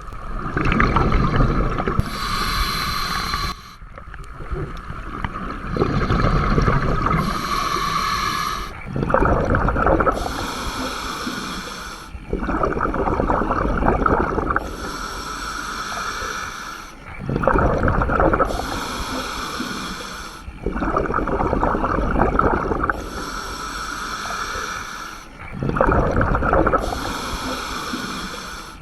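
Scuba diver breathing through a regulator underwater, in a slow, even rhythm of about five breaths. Each inhalation is a hissing draw through the demand valve, and each exhalation releases a loud, low, gurgling rush of bubbles.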